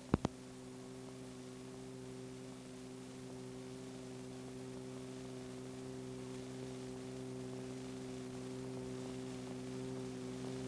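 Steady electrical mains-type hum on the soundtrack, made of several steady low tones over faint hiss and growing slightly louder, with two sharp clicks just after the start.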